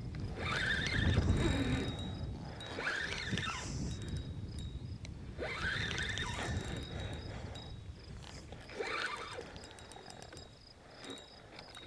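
Spinning fishing reel cranked in short bursts, about four times, while a hooked catfish is fought in from the bank. A faint steady high whine runs underneath.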